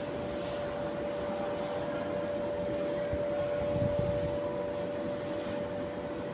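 A steady mechanical hum with a constant tone, and a brief low knock about three seconds in.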